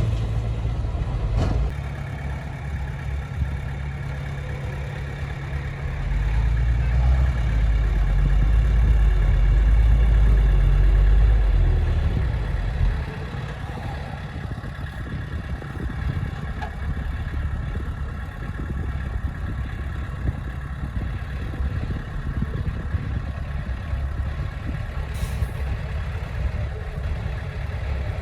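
Heavy diesel engine of earthmoving machinery running, with a deep low rumble that grows louder for several seconds in the middle and then settles back to a steady run.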